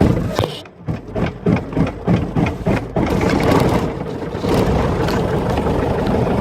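Light aircraft's piston engine starting: uneven, spaced firing pulses as it catches, then settling into steady running about three seconds in.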